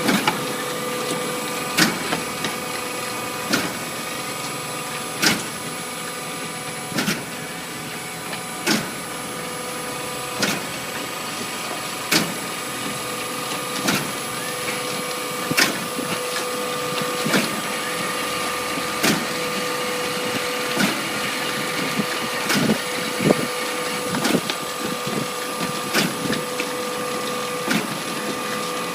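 Foam concrete machine running with a steady electric hum, and a sharp mechanical clack repeating evenly about every second and a half to two seconds.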